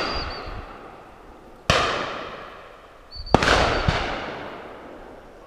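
Two shotgun shots about a second and a half apart, each loud and sharp and ringing away over a couple of seconds, fired at driven pheasants. The tail of an earlier shot is fading as the first begins.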